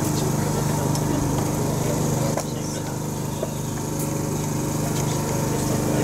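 Electric blower of a homemade forced-air furnace, a motor salvaged from a washer-dryer, running with a steady hum. Its level dips slightly about two and a half seconds in.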